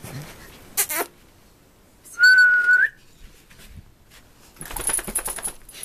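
A single short whistled note about two seconds in, held steady and lifting slightly at the end. A brief rustle comes before it, and a run of quick breathy noises comes near the end.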